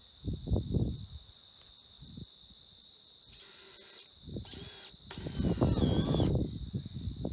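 A power drill driving screws to fasten wooden stair stringers to a rim board. The motor whines in three short runs: one about three and a half seconds in, a brief one just after, and a longer one toward the end, with its pitch wavering.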